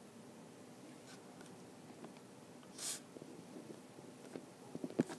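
Faint taps and scratches of a stylus on a tablet screen as handwriting is added, with a cluster of small taps near the end. A short hiss comes about three seconds in.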